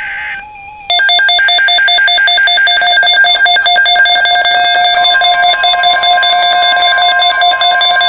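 Midland WR-100 weather radio sounding its alert alarm for an incoming NOAA Weather Radio watch: a short electronic tone burst, then from about a second in a loud, rapidly pulsing high-pitched alarm. A steady tone joins under it about five seconds in.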